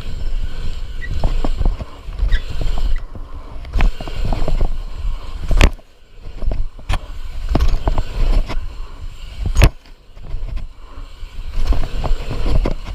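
Heavy wind rumble on the microphone with rolling noise from a bike being ridden, rising and falling, broken by a few sharp knocks, the loudest about six and ten seconds in.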